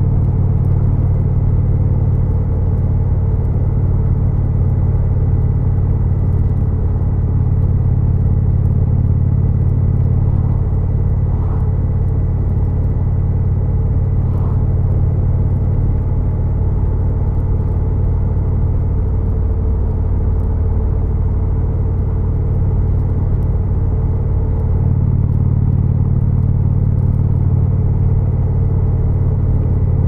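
Indian Chief's Thunder Stroke 111 V-twin running through a Freedom Performance exhaust at an easy, steady cruise, a deep, even engine note with little throttle change. The note eases slightly for a few seconds past the middle.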